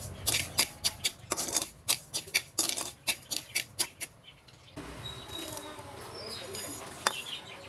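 A perforated metal skimmer scraping and clicking against an aluminium wok as it stirs dry sugar for caramelising, a quick run of sharp strokes that stops about four seconds in. After that it is quieter, with one more click near the end.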